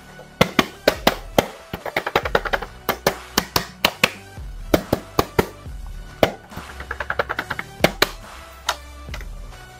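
Background music with a low bass line, over irregular clicks and crackles of a cardboard toy box with a plastic window being handled and opened.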